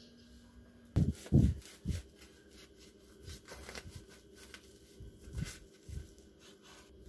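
Plastic cling wrap crinkling as a toasted sandwich is handled and a knife cuts through the wrapped sandwich on a wooden cutting board. A few dull thumps against the board are the loudest sounds, three in the first two seconds and two more near the end.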